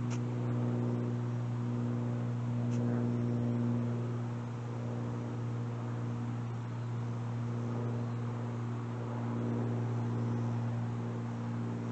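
A small engine idling steadily, a low even hum with overtones, with a light click near the start.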